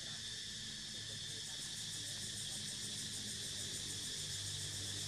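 Steady insect chorus, a continuous high shrilling, with a low steady hum underneath.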